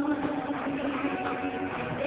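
Live band playing, with guitar on stage and one steady note held through.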